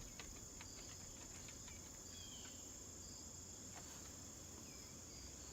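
Crickets chirping in a steady, faint, high-pitched chorus, with a few short faint chirps over it.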